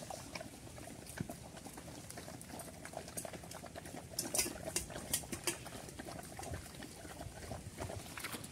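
Several dogs lapping milk-soaked food from steel plates: quick, irregular wet clicking and slurping.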